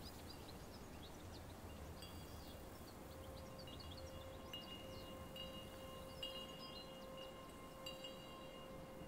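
Faint chimes ringing with long, held metallic notes, freshly struck a few times in the second half, over quiet high bird chirps that give way as the chimes come in.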